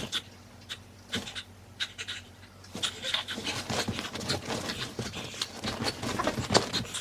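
Dog panting, quick short breaths that come thicker in the second half.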